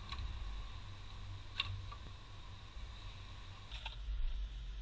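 Hands working on parts in a car's engine bay: a few scattered clicks and taps, the sharpest about a second and a half in, over a low rumble.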